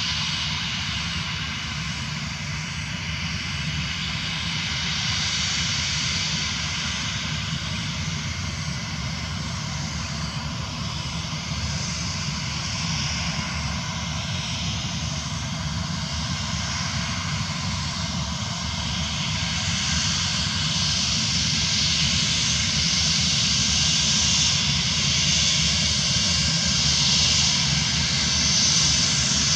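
Jet airliner's turbofan engines running on the runway: a steady low rumble under a loud high hiss and whine. It grows louder over the last ten seconds or so.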